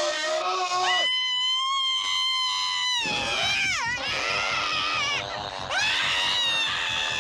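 A woman screaming in terror: a high scream held for about two seconds that breaks off in falling wails, and another high scream near the end. Under it from about three seconds in runs a rough, rapid animal-like snarling from the attacking creature.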